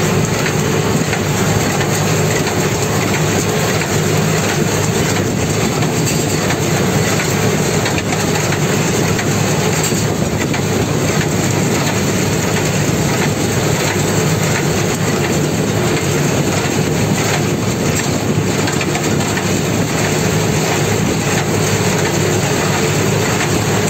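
Tractor engine running steadily under load with a Hisarlar square baler working behind it, picking up and baling ryegrass: a loud, continuous mechanical clatter heard from the tractor's cab.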